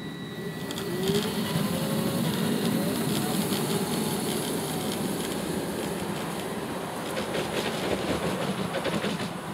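Miniature railway passenger train running past close by: a steady rumble of its wheels on the track, with scattered clicks.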